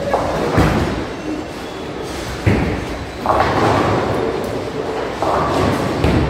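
Ten-pin bowling: balls dropping and rolling down the lanes and crashing into pins. There are several heavy impacts, with clattering pin crashes that ring on in the big hall, the loudest about two and a half and three seconds in.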